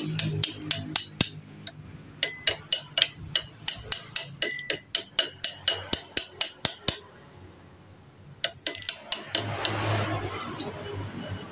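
Metal clinking of an L-shaped socket wrench on a scooter's front axle nut as it is turned in quick strokes, about three to four sharp clicks a second. The clicking stops about seven seconds in and comes back briefly a second or so later.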